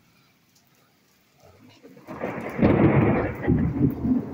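Thunder after a lightning flash: almost nothing for the first second and a half, then a low rumble that builds into a loud, crackling roll and begins to fade near the end. Rain falls underneath.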